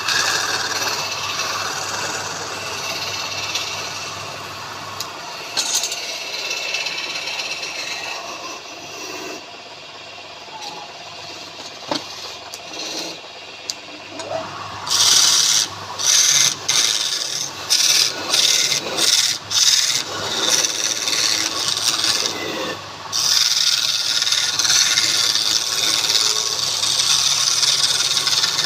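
Wood spinning on a woodturning lathe, worked against with a tool, making a continuous rasping hiss over a steady low hum. About halfway in, the hiss breaks into a run of short, loud strokes, each lasting under a second to a couple of seconds, with brief gaps between them.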